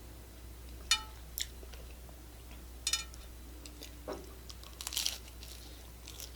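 Crunchy Taco Bell hard-shell tacos being bitten and chewed close to the microphone: about six short, crisp crunches a second or so apart, some of them quick crackling clusters.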